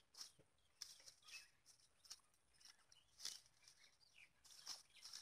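Faint rustling of wet weeds and mud pulled by hand, heard as a few short scattered rustles, with a faint bird chirp or two behind them.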